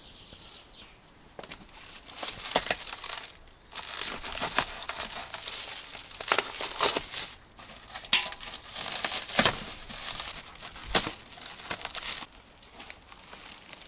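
Packaging being torn and crumpled off a newly delivered item as it is unboxed: a run of crinkling, rustling bursts with sharp crackles that stops suddenly about twelve seconds in.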